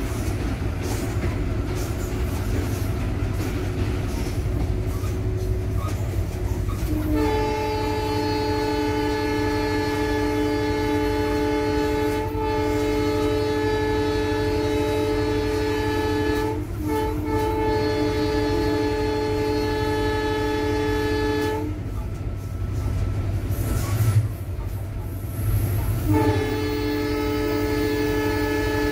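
Locomotive air horn heard from inside the cab, a chord of several steady tones held long twice: once for about fifteen seconds with a short break partway, then again starting near the end. Under it runs the steady rumble of the running diesel locomotive and train, with a couple of sharp knocks between the two horn blasts.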